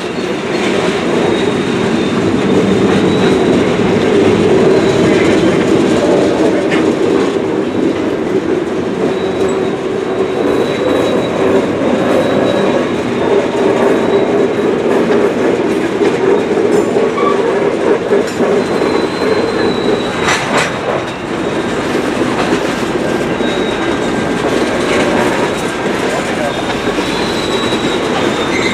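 Freight train cars rolling steadily past: covered hoppers, then tank cars, their wheels rumbling and clattering over the rails, with a thin high wheel squeal and a single sharp knock about twenty seconds in.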